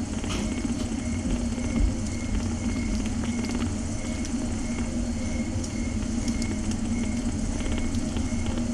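Mother cat purring steadily, a continuous low rumble, while she nurses her litter of kittens.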